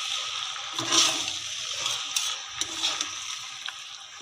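Fusilli pasta being turned and stirred with two spatulas in a kadhai of hot masala: a sizzling, scraping hiss that swells each time the spatulas push through, with a few light clicks of metal on the pan.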